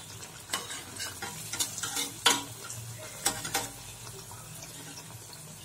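Wheat-flour appams frying in hot oil in a kadai, a soft steady sizzle. Several sharp clinks in the first few seconds come from a steel slotted skimmer knocking against the pan as the appams are turned and lifted out once both sides are cooked.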